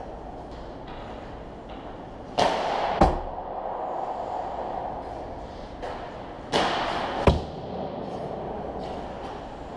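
Two ice hockey shots. Each is a sharp crack of stick on puck, followed well under a second later by a heavier thud as the puck strikes. The shots come about four seconds apart over the echoing hum of the rink.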